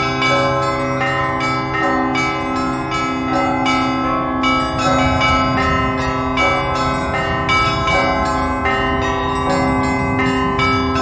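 Russian Orthodox church bells ringing a zvon, struck by hand by a bell ringer: quick, rhythmic strikes of the small bells, about three or four a second, over the steady ringing of the larger, lower bells.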